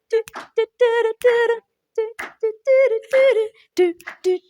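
A woman singing unaccompanied, a cappella, in short repeated phrases that hover around the same note.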